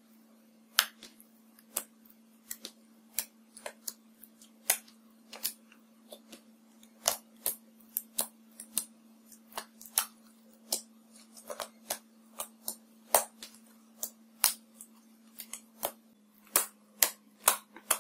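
Clear slime being squeezed and poked by hand as pigment powder is kneaded in: sharp, sticky clicks and pops at an irregular pace, a few a second, coming faster near the end.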